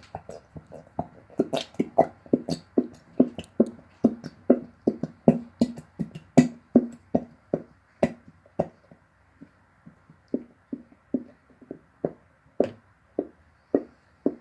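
Background music of short plucked notes in a steady rhythm, about two or three a second, thinning out in the last few seconds.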